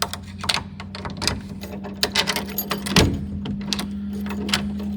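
Repeated metallic clicks and rattles of a door lock and its handle being worked, over a steady low hum.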